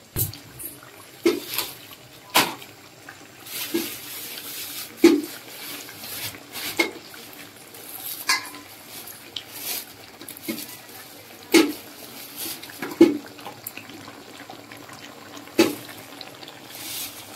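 A spatula stirring chicken pieces through a watery masala in a metal kadhai: wet stirring, with sharp knocks and scrapes of the spatula against the pan every second or two.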